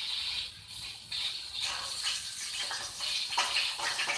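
A hot frying pan sizzling, with a steady hiss and irregular crackles that come more often from about a second and a half in.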